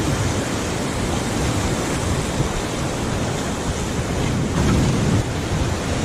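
Whitewater of a river rapid rushing and splashing around an inflatable raft, with wind buffeting the microphone; a louder surge about five seconds in.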